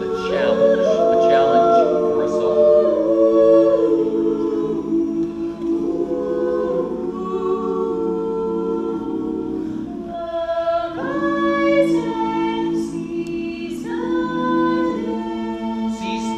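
Mixed men's and women's a cappella choir singing in close harmony, holding chords that shift every second or two, with short breaks between phrases.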